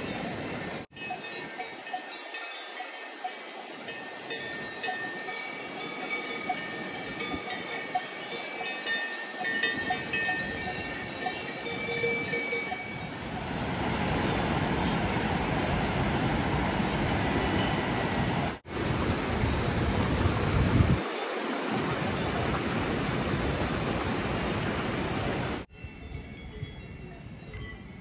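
Cowbells clinking irregularly over the rush of a mountain river. About halfway through, the rushing water becomes much louder and covers the bells. Near the end the rush drops away and faint bell tones return.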